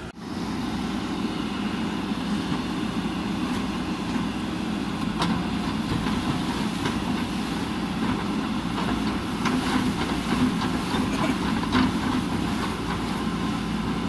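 JCB backhoe loader's diesel engine running steadily while the backhoe arm works, with a few short knocks partway through.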